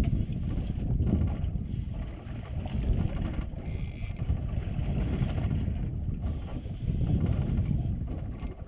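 Wind buffeting the microphone in an uneven low rumble, over the sea washing against a small open boat.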